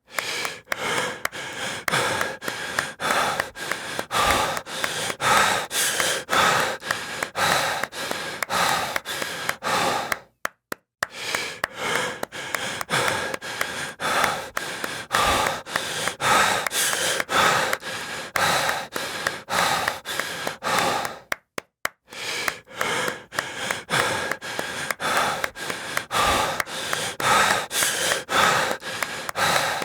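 Heavy breathing with gasps and sighs, over a stream of irregular hand claps at about two to three a second. The sound cuts out briefly twice, about ten and twenty-one seconds in.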